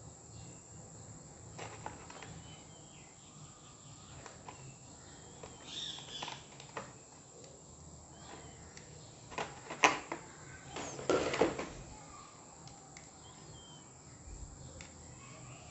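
Clicks and crinkles of a clear plastic blister tray and a plastic model motorcycle being handled, sharpest about ten seconds in and a short flurry just after, over a quiet background with faint chirping.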